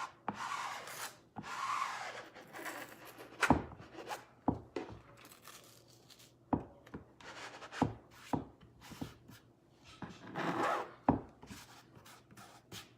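Handled squeegee scraping chalk paste through a silk-screen transfer mesh onto a wooden board, in several rubbing strokes. Sharp clicks and knocks come in between the strokes.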